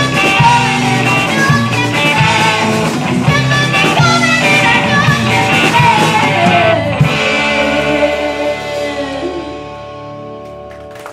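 Live rock band with a female lead singer, electric guitars, bass, drums and keyboard playing the close of a song. About seven seconds in the band lands on a final chord that rings on and fades away.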